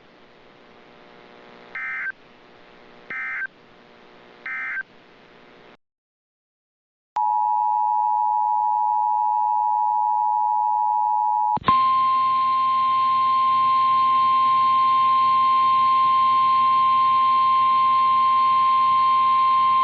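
Emergency Alert System end-of-message: three short squawking data bursts over radio hiss, about a second apart. After a brief dead gap come the two-pitch EAS attention tone for about four seconds, then an abrupt switch to the single steady NOAA Weather Radio warning alarm tone.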